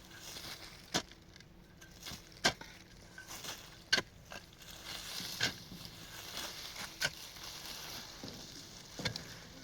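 A series of sharp knocks, about one every second and a half.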